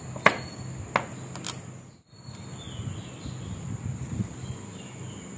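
Kitchen knife chopping green chillies on a wooden cutting board: three sharp knocks in the first second and a half, the first the loudest. A steady low hum runs underneath.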